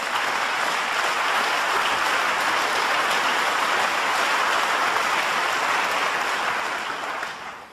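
Snooker audience applauding a break of 70: steady, dense clapping that fades away near the end.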